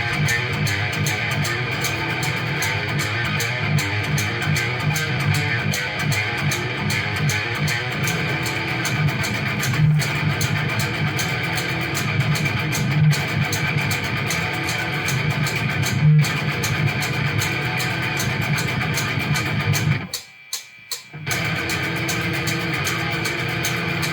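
Guitar-led music with bass, steady throughout, with a brief near-silent break about twenty seconds in.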